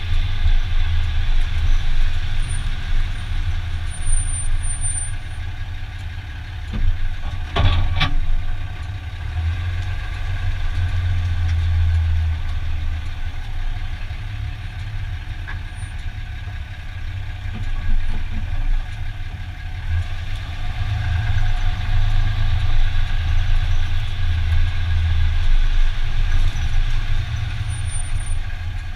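2015 Dodge Ram 2500 pickup running at low speed with a steady low drone that swells and eases. A single sharp clunk comes about eight seconds in, the drivetrain noise heard when parking.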